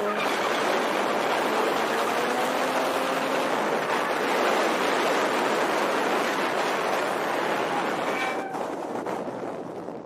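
Nissan 350Z drifting: its rear tyres spinning and sliding give a steady, rough rush of tyre noise, with the engine faintly audible beneath it. The noise fades near the end as the car moves away.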